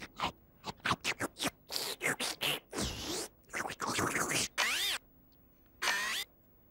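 A puppet vacuum cleaner's cartoon sound effects: a run of quick scratchy rasps, then a few warbling squeals that slide up and down in pitch.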